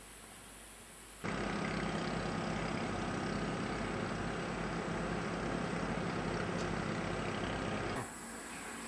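Boat outboard motor running steadily, a low pulsing engine drone that cuts in abruptly about a second in and drops away near the end.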